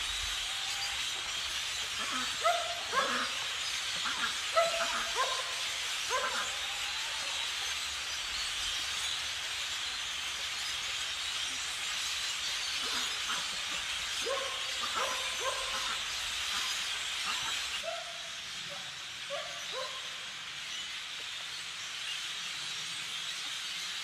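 A large flock of migrating blackbirds calling together as a steady, hissing chatter. Louder short, falling calls stand out in clusters a couple of seconds in and again in the second half.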